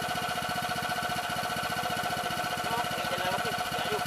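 Small engine of a rice transplanting machine running steadily, with a fast, even beat and a constant whine above it.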